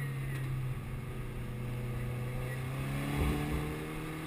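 Subaru Impreza WRX STI's turbocharged flat-four engine under load, heard from inside the cabin, with a steady low drone. About three seconds in there is a brief jolt, after which the engine note climbs.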